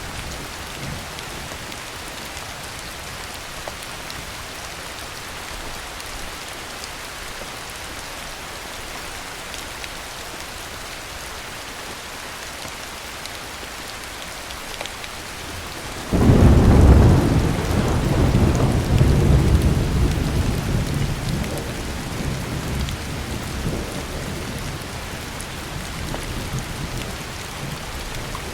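Heavy rain falling as a steady hiss. A little past halfway a thunderclap breaks out suddenly, then rolls on as a long low rumble that slowly fades over the next several seconds.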